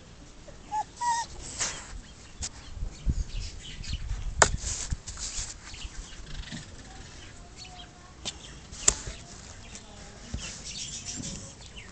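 Kittens scuffling and wrestling on towels in a cardboard box: scattered rustling and scratching, with two sharp knocks against the box, the louder about four seconds in and another about nine seconds in.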